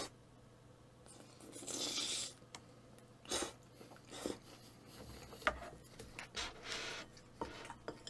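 Mouth sounds of eating saucy jjajang seafood and noodles: wet chewing and smacking, with one longer sloppy slurp-like stretch about two seconds in and a scatter of short sharp clicks later on.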